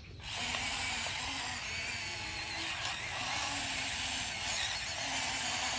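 Small electric motors and gearboxes of a toy RC excavator whirring steadily as it drives on its tracks and swings its upper body, with a faint low whine that comes and goes.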